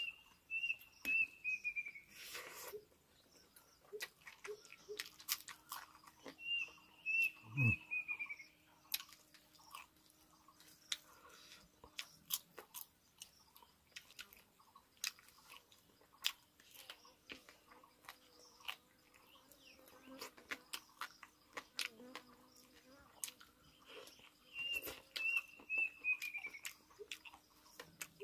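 A person chewing and crunching food close to the microphone, with many short crisp clicks. A bird calls three times, each call a quick run of about five falling notes.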